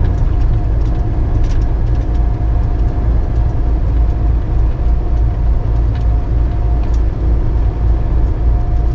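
Steady road and engine rumble of a vehicle cruising at freeway speed, heard from inside the cabin: a deep, even drone with a faint steady tone above it.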